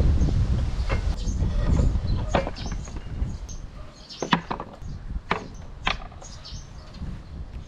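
Tools such as wire brushes and a flap disc being set down on a wooden slatted table, giving about five short sharp knocks. Wind rumbles on the microphone for the first couple of seconds.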